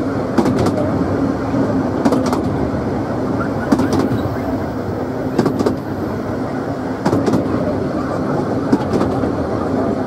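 Narrow-gauge railway passenger coach running along the track: a steady rumble, with a double click from the wheels crossing rail joints about every second and a half.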